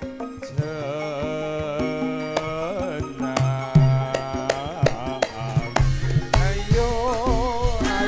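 Javanese gamelan music for a tayub dance: kendang hand drums beating under a melody sung with wide vibrato. Deep drum strokes come in heavier about six seconds in.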